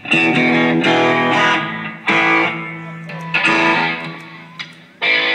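Electric guitar played through an amplifier: four chords struck a second or two apart, each left to ring and fade before the next.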